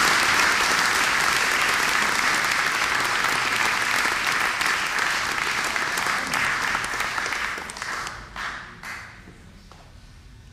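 Audience applauding steadily, then dying away in a few last scattered claps about eight to nine seconds in.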